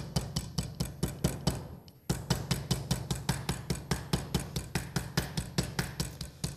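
Metal meat mallet pounding chicken breasts through plastic wrap on a wooden cutting board, flattening and tenderizing them: quick, even taps about five a second, with a brief pause about two seconds in.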